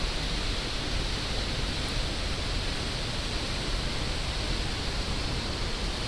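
River water rushing over and between boulders in rapids: a steady, even rush.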